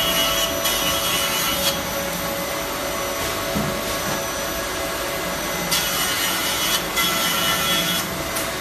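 PCB production machine running with a steady hum. Louder stretches of hiss with a whine come at the start and twice from about six seconds in, each about a second long.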